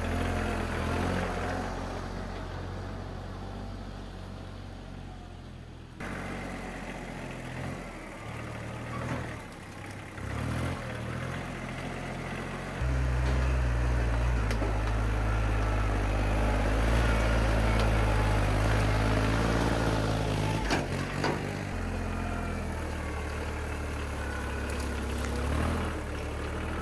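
Kubota compact tractor engine running steadily as the tractor drives along a woodland trail. It gets markedly louder and closer about halfway through.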